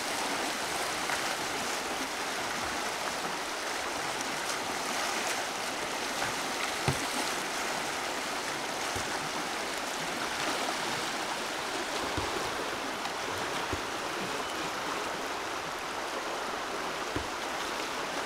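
Steady rushing of fast river water over a small wave, with a few brief low knocks, the sharpest about seven seconds in.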